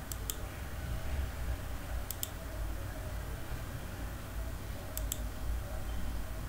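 Computer mouse button clicks: three quick pairs of clicks, near the start, about two seconds in and about five seconds in, as points of a three-point arc are picked on screen. They sit over a faint low steady hum.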